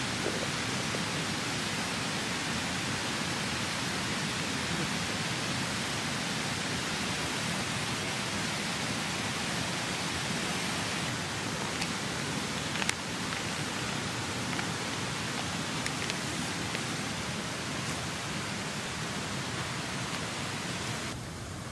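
Mountain stream rushing steadily over rocks, with a couple of faint ticks about halfway.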